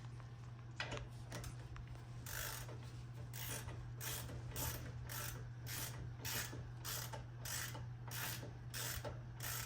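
Socket ratchet wrench clicking in short repeated back-strokes, about two a second, as bolts on the brake caliper assembly are run in with a hex socket.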